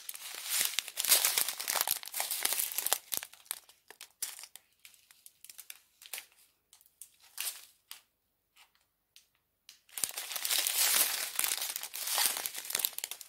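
Small clear plastic zip bags of diamond-painting drills crinkling as they are handled and turned over. Dense rustling at first, thinning to scattered rustles, then a pause of about two seconds before the crinkling picks up again near the end.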